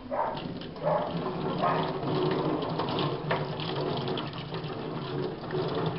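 Kitchen tap running steadily, the stream splashing over a rubber flip-flop strap held under it and into a stainless-steel sink, cooling the strap after boiling.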